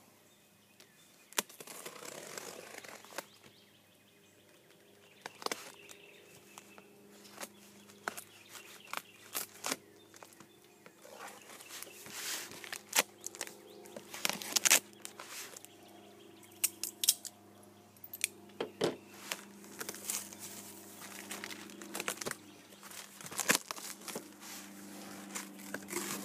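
Balisong knife slitting the packing tape on a cardboard shipping box: scraping, crinkling and sharp clicks of tape and cardboard, with the box flaps pulled open near the end. A faint steady low hum sits underneath.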